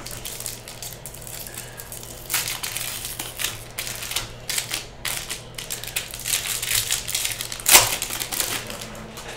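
Foil wrapper of a Topps baseball card pack crinkling and crackling as it is torn open and pulled off the cards by hand, with the sharpest crackle a little before the end.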